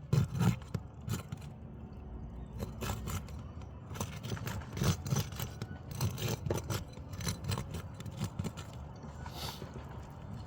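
Asphalt roof shingle being worked loose during a repair attempt: irregular cracking, scraping and clicking as the shingle is pried and handled, over a low rumble.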